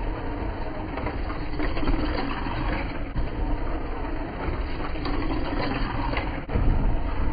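Slot car's small electric motor whirring, with its tyres and guide running along the plastic track as it laps at speed. Louder for a moment near the end as the car passes close by.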